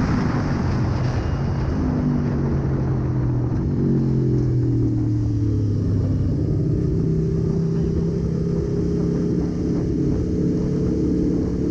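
Aprilia Tuono V4 1100's V4 engine running under way. Its note eases down over the first few seconds, then picks up about six seconds in and holds steady, over a constant rush of wind noise.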